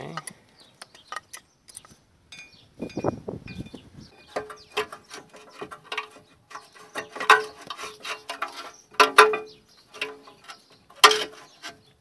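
New rear brake pads being pushed and worked into their spring clips in the caliper carrier. The steel pad backing plates and clips give irregular clicks and clinks, some with a short metallic ring. The sharpest clanks come about seven, nine and eleven seconds in.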